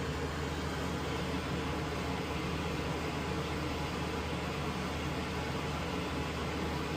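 Steady background hum with an even hiss, unchanging throughout, with no distinct clicks or knocks.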